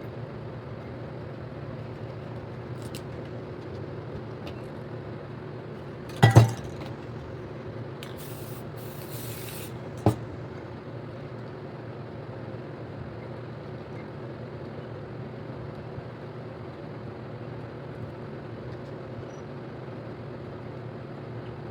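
Aerosol spray paint can hissing in a few short bursts about eight to ten seconds in, after a loud clatter around six seconds in and followed by a small click, over a steady low hum.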